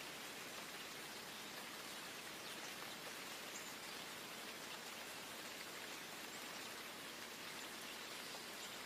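Steady rain falling: an even hiss with faint scattered drops.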